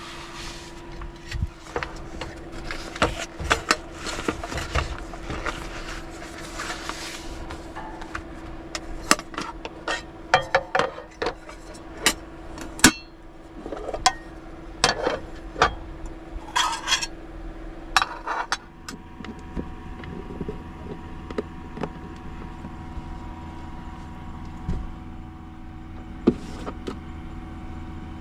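Small hard objects being handled and set down: a run of clicks, knocks and light clattering, thinning out about two-thirds of the way through, over a faint steady hum that is joined by a low rumble at that point.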